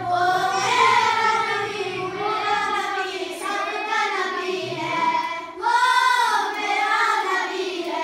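A boy singing a naat, a devotional song, solo and unaccompanied, in long held notes that waver and bend in pitch.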